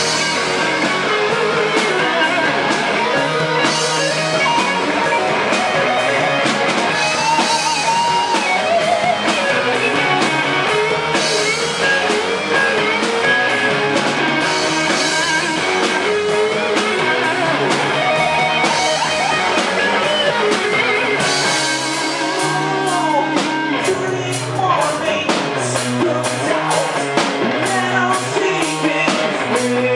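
Rock band playing: electric guitar over bass and drum kit, with a lead guitar bending notes up and down. About two-thirds of the way through, the cymbals strike more densely.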